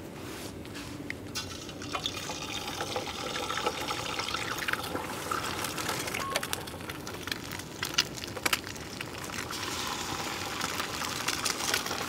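Food sizzling in a frying pan: a steady hiss with scattered crackling pops.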